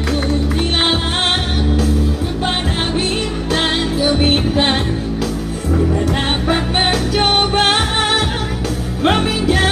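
A song with a singing voice over a band with bass and guitar.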